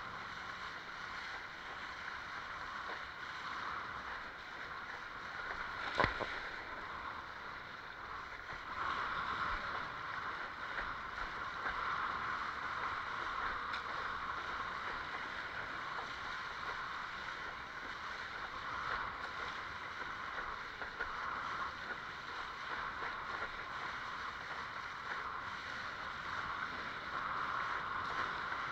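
Water rushing and splashing along the hull of a Fanatic Ultra Cat windsurf longboard as it sails through chop, a steady hiss that grows a little louder partway through. A single sharp knock about six seconds in.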